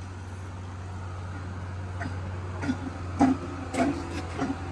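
Steady low mechanical hum, like an engine or generator running, with faint distant voices in the second half.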